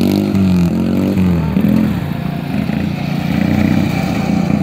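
Racing lawn tractors' small engines revving as the tractors pull away from the start. The pitch rises and falls several times in the first two seconds, then the engines run on more steadily.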